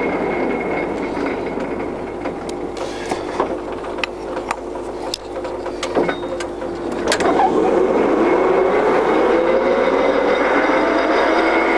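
Heymer & Pilz gap-bed lathe headstock gearing running during a speed change. The drive runs down and several clunks of the gear levers come between about four and seven seconds in, then the spindle runs back up to speed with a whine that rises in pitch.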